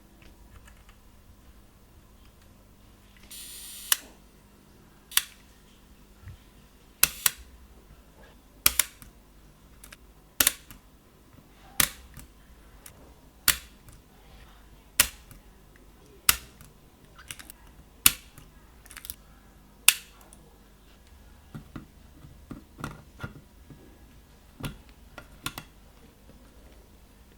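Leaf shutter of a 1958 Olympus Ace camera being fired over and over, a sharp click about every one and a half seconds, eleven times, after a short whirring hiss. Lighter, irregular clicks follow near the end.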